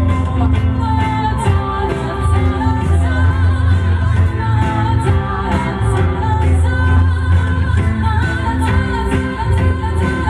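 A rock band playing live with a singer over a steady drum beat and heavy bass, loud and echoing in a club.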